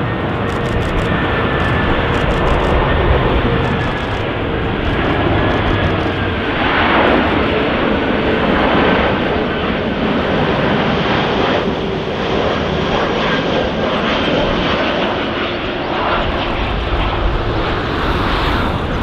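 Airliner engines running loud and steady, with faint whining tones that sink slowly in pitch.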